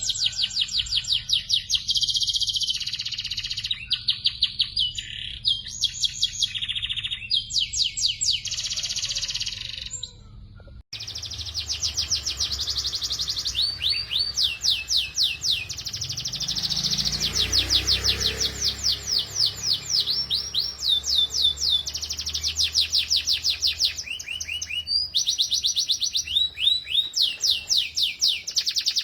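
Domestic canaries singing long, rapid, high-pitched trills and rolls. About 11 s in, the song briefly drops out and a second recording begins, with a low rumble underneath.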